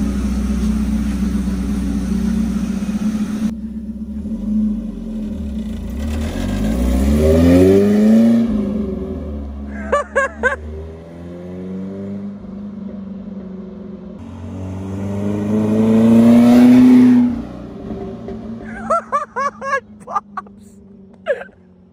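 Chevy S10's four-cylinder engine running through a Flowmaster muffler as the truck pulls away, its note rising twice under acceleration: the first rise eases off about eight seconds in, the second cuts back sharply about seventeen seconds in. Brief voices break in now and then.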